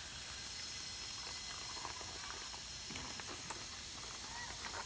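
A steady hiss with no change in level.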